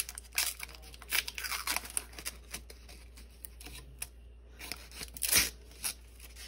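Heat-resistant tape being peeled off a sublimation mug and the paper wrap pulled away: a run of short ripping and crinkling sounds, irregular and close.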